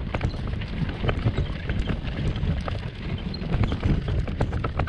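Kayak being moved along a gravel road: gravel crunching under it, with a busy run of irregular clicks and knocks over a low rumble.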